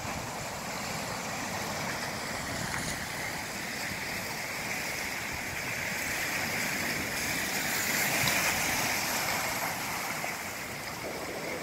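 Sea surf washing against the shoreline rocks, a steady rush of water that swells louder about eight seconds in.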